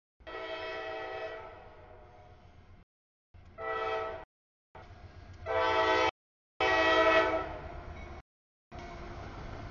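CSX freight locomotive's air horn blowing a chord in several blasts as the train passes through the grade crossing; the last blasts are the loudest, with the audio cutting out briefly between them. Near the end the horn stops, leaving the steady rumble of the double-stack container cars rolling by.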